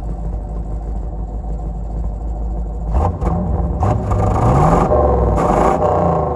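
A car engine running with a low rumble, then revved about three seconds in, its pitch climbing and the sound growing louder.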